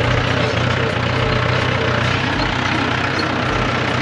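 Mahindra tractor's diesel engine running steadily at close range, a constant low drone.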